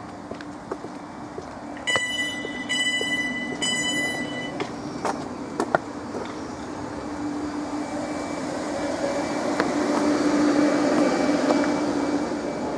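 Class 350 electric train's door-warning beeps sound three times, then the train pulls away with a steady electric motor hum and running noise that grows louder.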